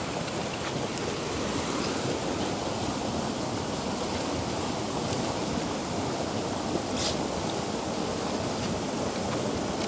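Steady rush of flowing river water, with one brief tap about seven seconds in.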